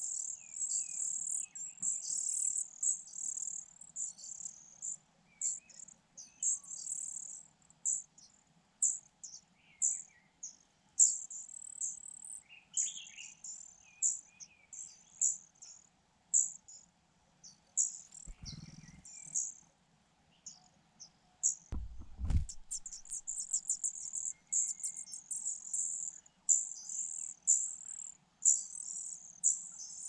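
Fujian niltava nestlings begging: a stream of short, very high-pitched calls in irregular bursts, with a few lower notes among them. Two soft thumps with a rustle come a little past the middle.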